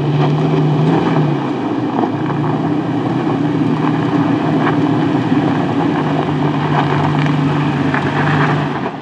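Toyota Tacoma TRD Pro's 3.5-litre V6 engine running at a steady low drone as the truck crawls over a rocky dirt trail, with scattered faint clicks of tyres on stones. The sound fades out at the very end.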